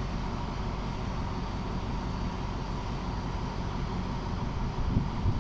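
Diesel locomotive engine idling at a standstill, a steady low rumble, with a few low knocks near the end.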